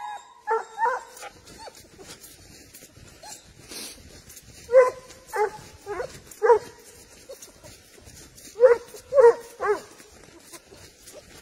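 Spanish hound (sabueso español) giving tongue in short, high-pitched barks while tracking a wild boar's scent: a few near the start, a run of four about five seconds in, and three more near the end.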